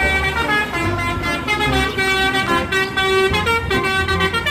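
Music: a melody of held, horn-like notes that step from pitch to pitch, in the style of a bus 'telolet' horn tune, over a steady low beat.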